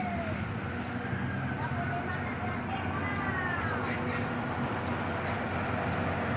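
A bus's diesel engine running steadily at low revs, with a few short bird chirps over it, most of them about halfway through.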